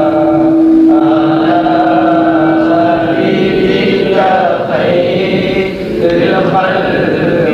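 A group of voices chanting together. One note is held steady for about the first three seconds, then the chant moves on.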